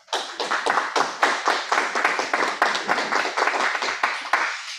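Small congregation applauding, many hands clapping together; it starts all at once and dies away near the end.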